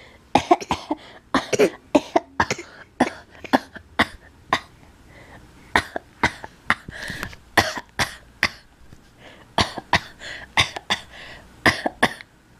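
Baby giving short, deliberate little coughs again and again at an uneven pace, a couple a second: coughing on purpose, for attention and for fun.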